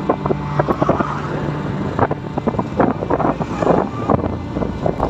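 Motorcycle running along a road at speed, its low engine hum under wind buffeting the microphone, with many short sharp clatters throughout.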